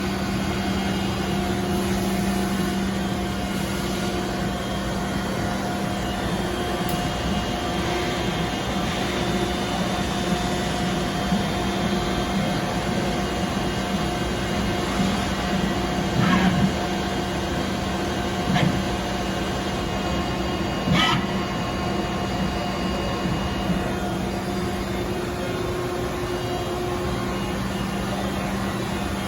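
Steady hum of running shop machinery, several tones held without change, with a few short knocks and clicks about halfway through and again near two-thirds of the way in.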